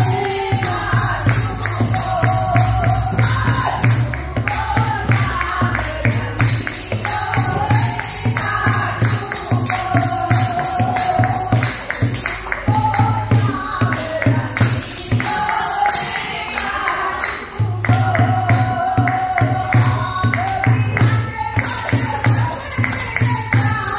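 Women singing a Shyam bhajan, a Hindi devotional song, to dholak drums, hand clapping and jingling hand percussion that keep a fast, steady beat.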